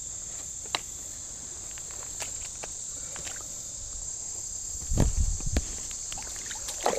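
Insects trilling steadily at a high pitch. There are a few sharp clicks, and a brief cluster of low thumps and rustling about five seconds in.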